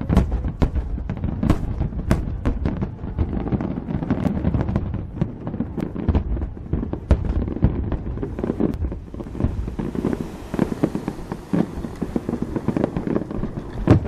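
Fireworks display: rapid, irregular bangs of aerial shells bursting over a continuous low rumble, with a stretch of hissing crackle about ten seconds in.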